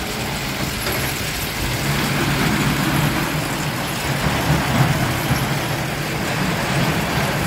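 A small children's roller coaster train of red cars rolling along its steel track, a steady rolling noise.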